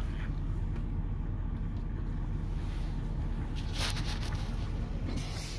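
Steady low rumble of an idling car engine, with two short hissing rustles about four and five seconds in.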